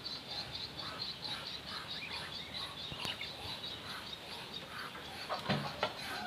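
Chickens chirping and clucking over a steady high pulsing drone, with a scoop knocking in a feed bucket a few times near the end.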